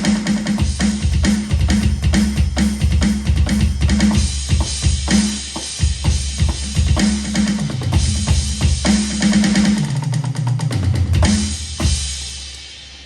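Roland VAD706 electronic drum kit played in a busy groove with kick and snare hits. Near the end a fill steps down the toms, then a cymbal rings out and fades.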